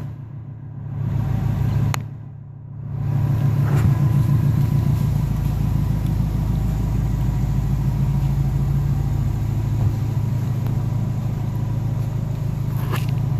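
Subaru Impreza WRX STI's turbocharged flat-four engine idling, a steady low rumble. The sound drops and goes muffled twice in the first three seconds.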